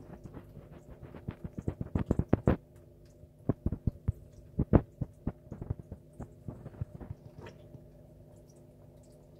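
Muffled low thumps and knocks on the recording phone, in quick clusters about two and about four to five seconds in, thinning to lighter taps later, over a steady low hum.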